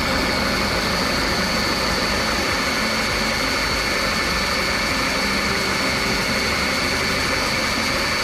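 2008 Ford Escape engine idling steadily with its accessory belt and pulleys turning, a steady high whine over it, while the AC compressor clutch stays disengaged.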